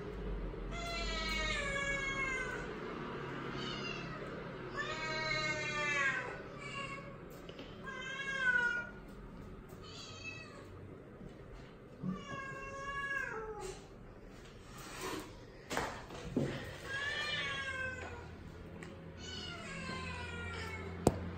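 A cat meowing over and over: about nine drawn-out, high-pitched meows, most falling in pitch. A couple of short knocks come about two-thirds of the way through.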